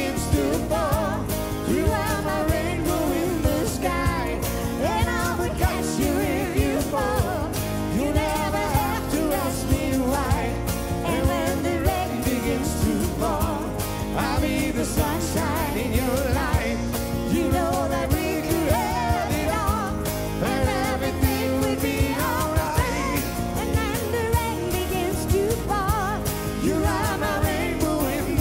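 Live acoustic band playing a song: a woman's voice sings the melody over strummed acoustic guitars, a twelve-string among them, with bass and percussion keeping a steady beat.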